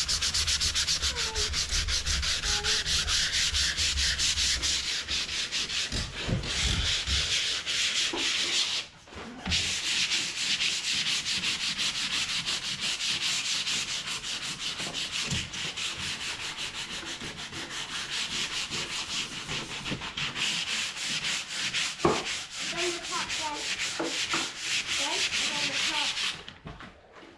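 Sandpaper worked by hand on a wooden drawer to take off old white paint: fast back-and-forth rasping strokes that pause briefly about nine seconds in and stop near the end.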